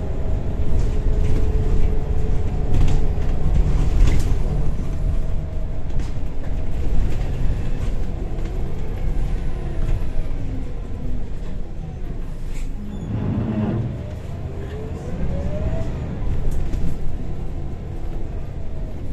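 Scania L94UB Wright Solar single-deck bus heard from inside the saloon while under way: steady engine and drivetrain rumble with whines that glide up and down. A short lull comes a little past the middle, then a whine climbs in pitch as the bus picks up speed.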